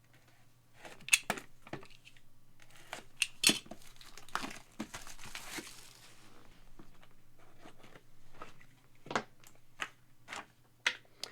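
Plastic packaging being handled and torn open: crinkling and tearing, with scattered sharp clicks and taps and a longer crinkly stretch about halfway through.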